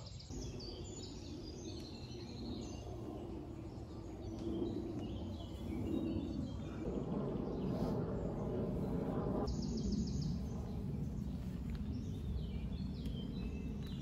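Several birds chirping and trilling over a steady low rumble of outdoor noise, which grows louder about halfway through.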